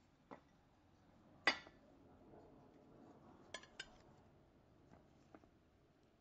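Ceramic plates clinking against one another as they are handled and unpacked. There are a few sharp clinks, the loudest about a second and a half in and a quick pair about two seconds later, with soft rustling of the paper wrapping between them.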